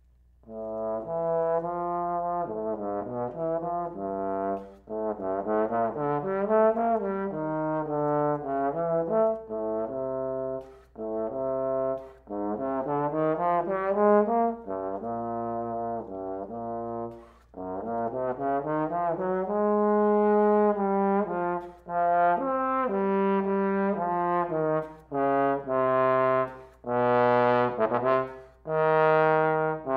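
Bass trombone played unaccompanied, beginning about a second in: a series of phrases separated by short breath pauses, with a few notes sliding in pitch. The playing grows louder and brighter near the end.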